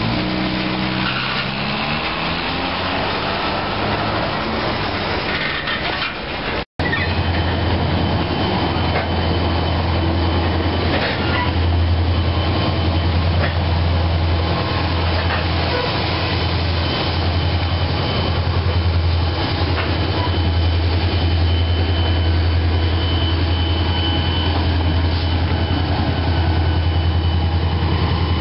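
Coal train rumbling over a grade crossing, with a pitched drone falling slowly in the first seconds. After a sudden cut about seven seconds in, the 16-cylinder two-stroke diesel of an EMD SD40 locomotive runs close by with a steady heavy low drone and a faint high steady tone above it.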